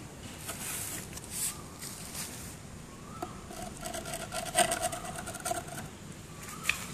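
Metal screwdriver tip scraping and prying at a black plastic port cap set in a white plastic housing: scratchy clicks throughout, and a steady squeak of metal rubbing on plastic from about three seconds in, lasting nearly three seconds.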